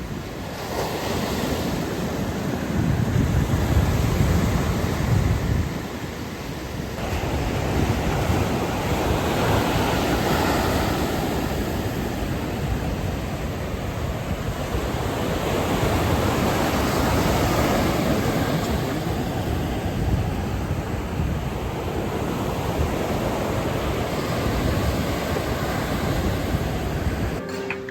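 Sea waves washing onto a beach, the surf swelling and ebbing every several seconds, with wind buffeting the microphone.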